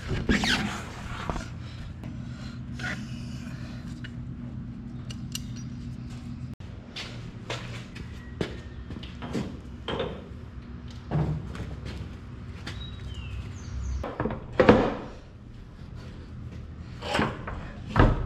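Scattered knocks and clunks of a stump grinder's tire and rim being handled and set onto a tire changer's spindle, the heaviest thuds near the end. A steady low hum underneath stops about a third of the way in.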